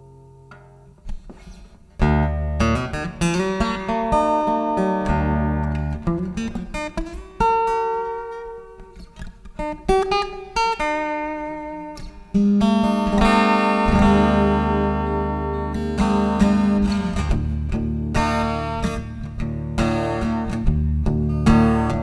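Yamaha FGX830C acoustic-electric guitar played fingerstyle through a Yamaha THR30IIA acoustic amp set to a long reverb, heard straight from the amp's line output. A fading note gives way to picked single notes and chords about two seconds in, and the playing turns fuller, with strong bass notes, about twelve seconds in.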